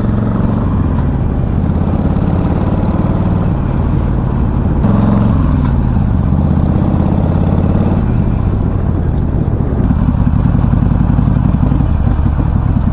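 Harley-Davidson Iron 883's air-cooled 883 cc V-twin engine running under way. It gets louder and changes pitch about five seconds in as the bike picks up speed, then eases back a few seconds later.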